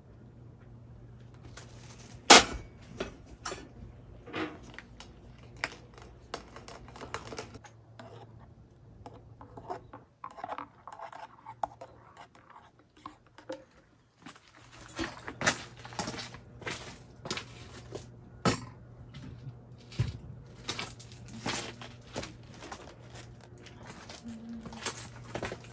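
A string of clicks, knocks and rustles of objects being handled, the loudest a sharp knock about two seconds in, over a faint steady low hum that drops out for a few seconds midway.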